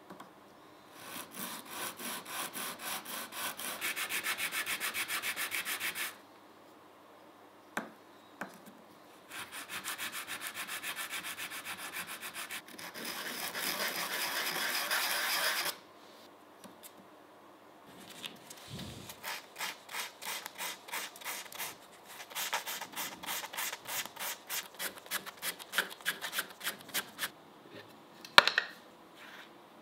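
Oak screwdriver handle sanded by hand on flat sandpaper: quick, even back-and-forth strokes in three long runs with short pauses between. A single sharp knock near the end.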